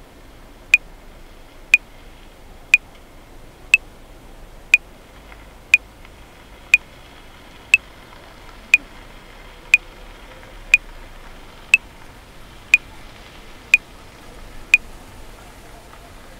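Metronome clicking once a second at 60 bpm, fifteen clicks, over a faint steady hiss. The clicks stop about a second and a half before the end.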